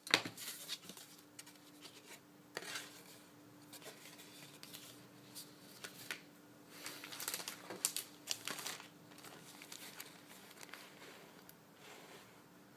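Sheets of white card being handled on a cutting mat: scattered sliding, tapping and rustling of the paper, busiest around seven to nine seconds in. A faint steady hum sits underneath.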